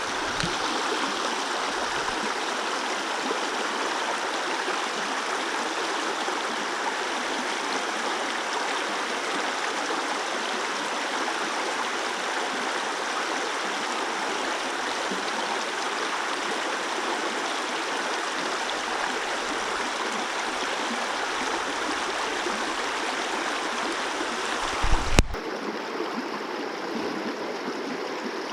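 Mountain stream water rushing steadily over rocks. A brief low thump near the end.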